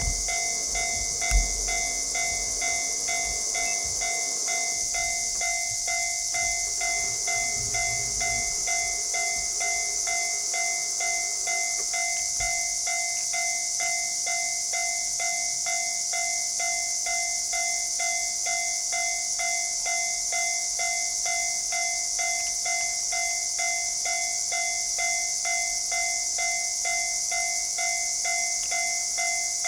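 Japanese railway level-crossing warning bell ringing: the same electronic ding repeats evenly and rapidly without a break, starting suddenly. Under it there is a steady high hiss, a low rumble that dies away over the first dozen seconds, and a single thump just over a second in.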